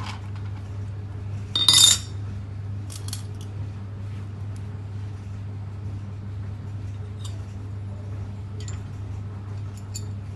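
Metal parts of an Anfim coffee grinder clinking as they are handled and fitted back together, with one louder metallic clatter about two seconds in and a few light clicks after. A steady low hum runs underneath.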